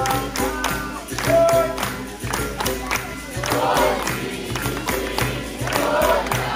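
Capoeira roda music played live: berimbaus, pandeiros and an atabaque keep a steady rhythm while the group sings in chorus.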